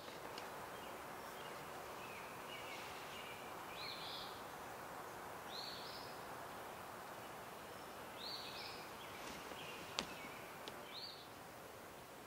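Woodland ambience: a steady background hiss with short, high songbird calls repeating every second or two, and a single sharp click about ten seconds in.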